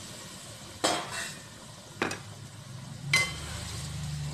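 A stirring utensil knocking against an aluminium cooking pot three times, about a second apart, while stirring a curry. The last knock gives a short metallic ring.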